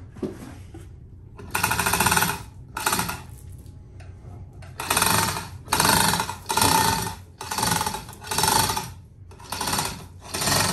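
Manual chain hoist being hauled by hand, the chain rattling through the hoist with each pull. There are two pulls at first, then a steady run of about one pull a second from about halfway through.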